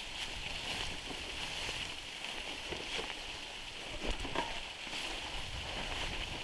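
Steady outdoor background noise: a low rumble under a constant high hiss, with a few faint knocks about four seconds in.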